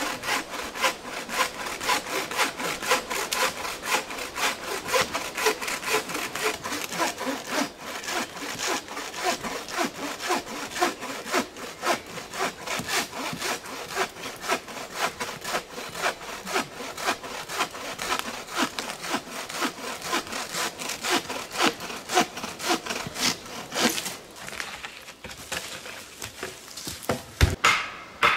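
A bow saw with a 60 cm blade cutting through a log in steady back-and-forth strokes, about two a second. The strokes slow and thin out near the end, where a sharp knock is the loudest sound.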